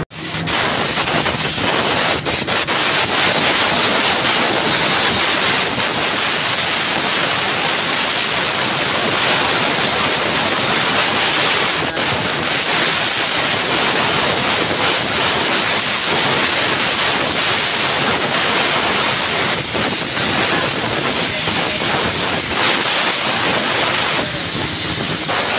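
Compressed air blasting from an air blow gun onto a turbocharger's bladed wheel and housing, a loud steady hiss, as oil contamination is blown off the turbo parts.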